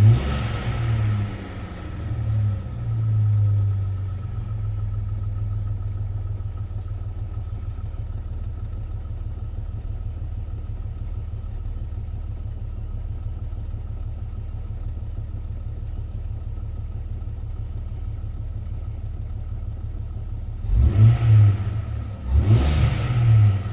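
2003 Jeep Grand Cherokee's 4.0-litre straight-six coming down from a rev at the start and blipped once a few seconds in. It then idles steadily and is revved twice near the end, with a faint steady whine over it.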